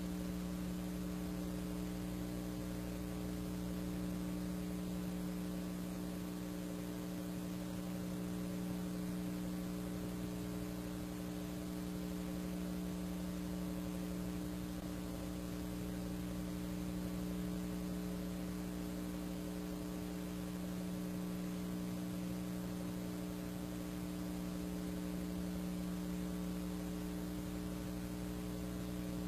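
Steady electrical mains hum with a faint hiss, unchanging throughout: the background hum of an old film's soundtrack transfer, with no machine sound heard.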